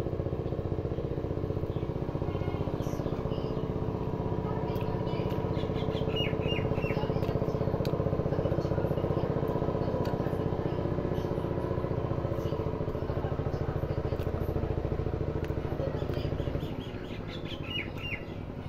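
An engine running steadily, with a fast, even throb; it drops off in loudness about sixteen seconds in. Short runs of bird chirps come twice, about six seconds in and near the end.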